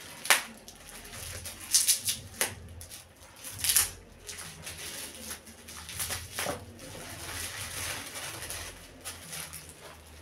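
Meat wrapping being handled: irregular rustling and crackling with several sharp crinkles, the loudest about a third of a second in and around two, four and six and a half seconds in.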